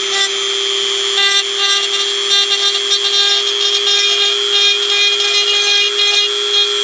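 High-speed rotary grinding tool running at a steady high pitch, with rough, scratchy grinding as it cuts into a cast aluminum oil pan, taking it down to bare metal and V-ing out cracks before welding.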